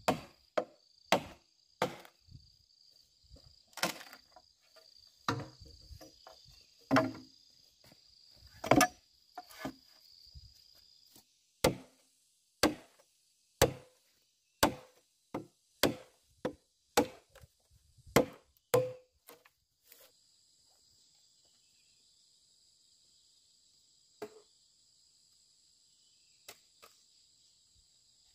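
Repeated chopping strokes with a blade, about one a second, which stop about twenty seconds in, followed by a couple of lone knocks. A steady high drone of insects such as crickets runs underneath.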